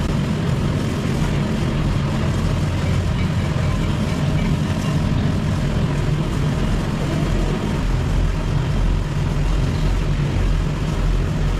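Steady low mechanical hum and rumble of running machinery, unchanging throughout, with faint voices behind it.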